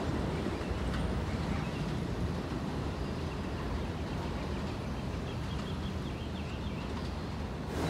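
Low rumble of an elevated subway train pulling away down the line, slowly fading into the steady background of the open-air platform.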